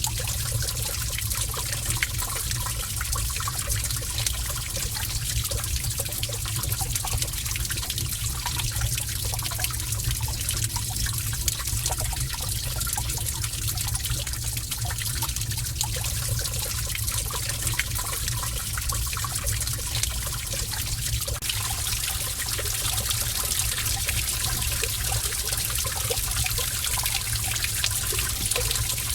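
Water trickling and running steadily in a cave, with small scattered drips and splashes over it.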